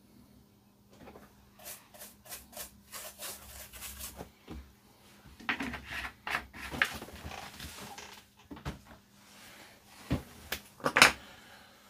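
Small objects and tools being handled on a workbench: scattered light clicks and rustles, with a couple of sharp knocks about ten to eleven seconds in.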